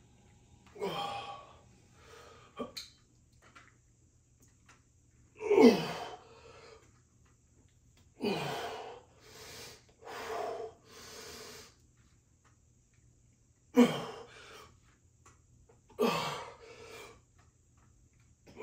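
A man straining through a set of dumbbell lateral raises taken to failure: heavy breaths and effort grunts, several falling in pitch. The loudest grunts come about six seconds in and again near fourteen seconds.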